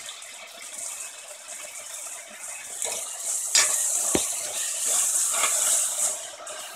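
Masala sizzling in oil in a pressure cooker while a metal slotted ladle stirs in curd, scraping and knocking against the pot a few times, loudest about three and a half seconds in.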